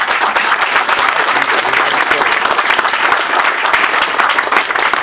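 Crowd applauding: many people clapping steadily and densely, swelling up just before and keeping on without a break.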